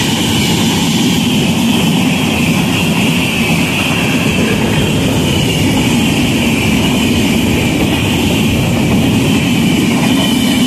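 Passenger coaches of an express train running through a station at high speed: a loud, steady rush of wheels on rail and moving air.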